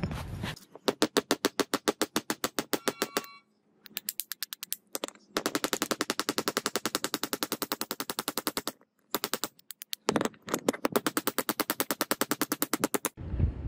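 Small hammer rapidly tapping a metal pin through a hatchet head, peening it over like a rivet: quick, ringing metal-on-metal taps, about eight a second, in several runs with short pauses between.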